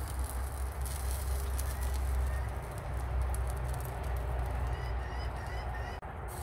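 Low steady rumble with a noisy background, and a series of short, faint bird chirps from about two seconds in.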